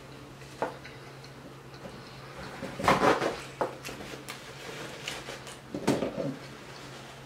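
Close-miked chewing of a loaded chili cheese hot dog: soft wet mouth clicks and smacks. There are two louder clusters of sound, about three seconds in and again near six seconds.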